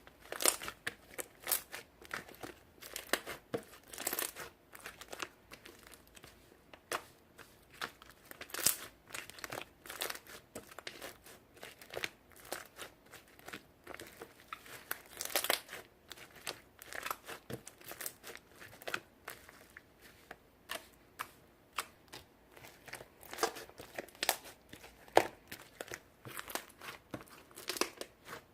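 Red watermelon slime being squished and pressed by hand, giving a continuous irregular run of sticky pops, clicks and crackles.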